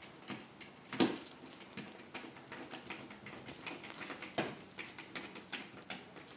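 Hand screwdriver driving a wood screw into the corner of a wooden frame: a run of small, irregular clicks and creaks, with two louder clicks about a second in and past the four-second mark.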